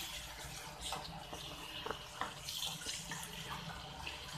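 Thick onion-tomato gravy sizzling in a non-stick kadai as a plastic spatula stirs and scrapes through it, with a few short knocks of the spatula against the pan.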